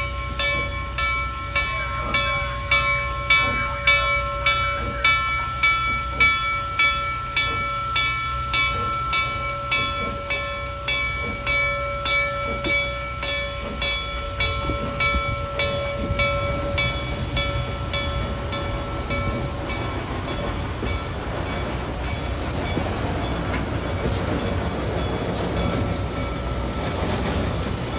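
Reading & Northern 2102, a 4-8-4 steam locomotive, pulling slowly past, its exhaust chuffing about twice a second with a steady high whine above it. After about twenty seconds the chuffs fade into the continuous rumble of the rolling train.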